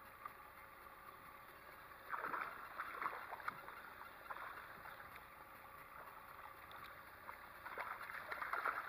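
Hooked fish splashing and thrashing at the water's surface beside a boat, in two faint spells: one about two seconds in, another near the end.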